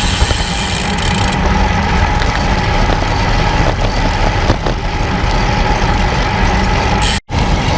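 Wind rushing over an action camera's microphone on a moving road bike, with the tyres rolling on asphalt. It is a steady, loud rush that cuts out for an instant near the end.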